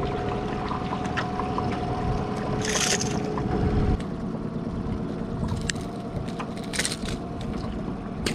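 Steady hum of a boat motor, with wind on the microphone, and two short splashes as a hooked bass is brought alongside the boat.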